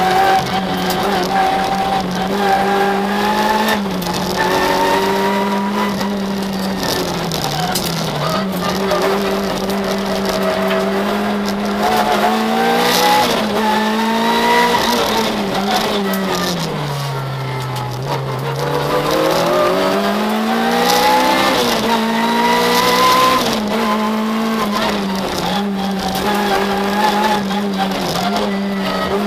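Citroën Saxo VTS rally car's four-cylinder engine heard from inside the cockpit, running hard at a fairly steady pitch with short dips. A little past the middle the revs fall away for a few seconds, then climb back up.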